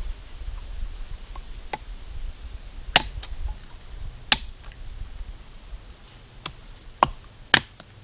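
Tramontina machete chopping thick green bamboo into short pieces: about six sharp, single chops at uneven spacing, the first faint and the rest loud, three of them coming close together near the end.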